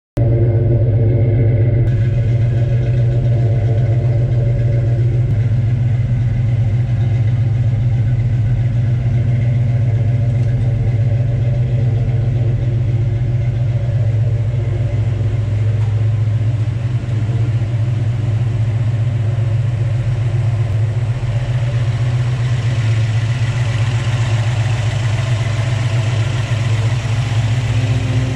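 347 stroker small-block Ford V8 of a 1966 Mustang Fastback idling steadily with a deep, even exhaust note. In the last several seconds a higher-pitched hiss and whir from the engine bay comes up over the idle.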